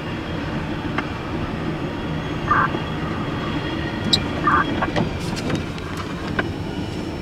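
CSX double-stack intermodal freight train rolling past, a steady rolling noise of wheels on the rails with scattered clicks as the container cars go by.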